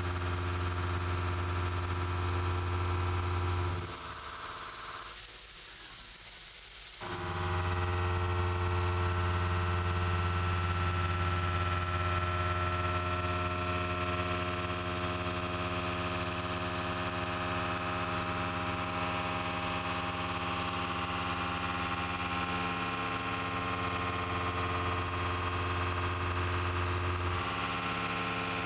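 Kennametal Mill 4-15 shell mill cutting 4140 steel on a CNC machining center: a steady cutting noise with a bright high hiss, mixed with background music. The low tones drop out for about three seconds from about four seconds in.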